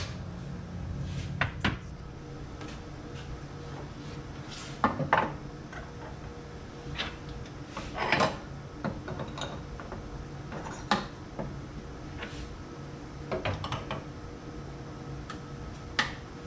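Steel and aluminium engine parts clinking and knocking as pistons, wrist pins and connecting rods are handled in a piston pin-setting fixture on a workbench: irregular metal clanks, the loudest about five, eight and eleven seconds in, over a steady low hum.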